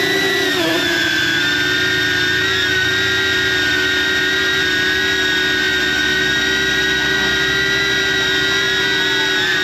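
DJI Avata FPV drone's motors and propellers whining steadily, heard from the camera mounted on the drone itself: several high tones held nearly level, with a brief wobble in pitch about half a second in.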